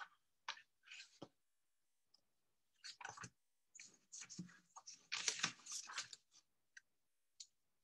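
Faint, scattered clicks and rustling in short bursts, busiest about five to six seconds in, with dead silence between them.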